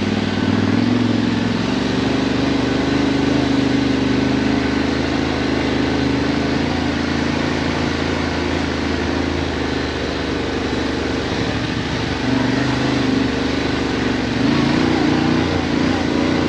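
Yamaha Ténéré 700's parallel-twin engine running at low, fairly steady revs as the motorcycle is ridden slowly over an off-road trail, the revs lifting a little a couple of times near the end.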